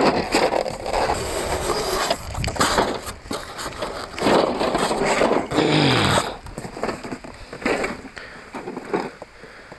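Plastic wrapping, thermocol packing and cardboard rustling and scraping in irregular bursts as a hand-push seeder is pulled out of its carton, dying down near the end.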